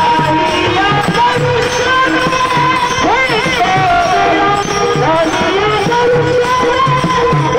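Varkari devotional singing: a male singer's high, sweet alaap with gliding, wavering melody, over jingling hand cymbals and a drum beating about twice a second.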